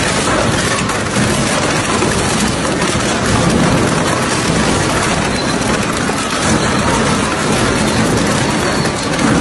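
Twin-shaft industrial shredder chewing up a moped: a loud, continuous grinding and crunching as the toothed rotors tear through the scooter's metal frame and plastic bodywork.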